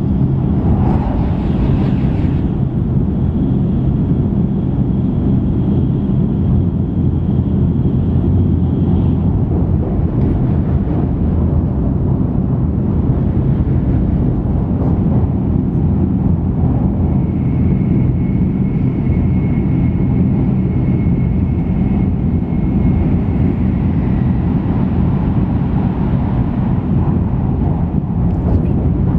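Cabin running noise inside an N700 series Shinkansen (7000 subseries) travelling at high speed: a steady low rumble of wheels on rail with air noise. A short rush of noise comes through about a second in, and faint high whines come and go.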